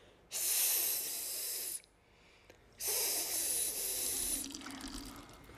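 Two long 'psss' hisses, each about a second and a half with a short gap between, made to coax urination.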